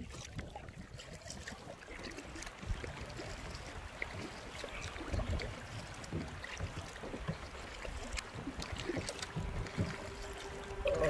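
Kayak paddling: the paddle blades dipping and splashing in the water with water trickling off them, over a low wind rumble on the microphone.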